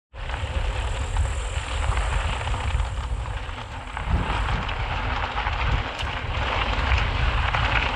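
Mountain bike being ridden along a muddy forest track: a continuous rumble of tyres and drivetrain churning through mud, with a faint high whine that fades out about halfway through.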